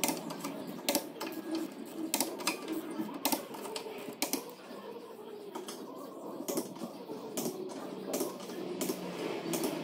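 A hand wrench clicks in sharp, irregular clicks as the wheel nuts are tightened, over a steady low workshop hum.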